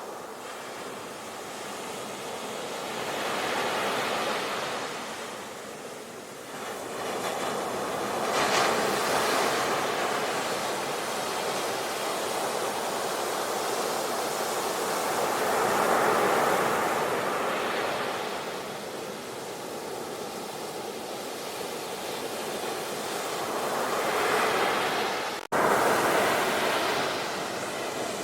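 Ocean waves breaking and washing up the shore, surging louder every few seconds. The sound cuts out for an instant near the end and resumes at once.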